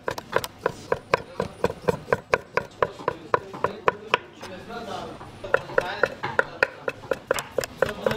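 Knife chopping rapidly on a cutting board: even strikes about four a second, each with a short ring. The chopping pauses for about a second midway, then resumes.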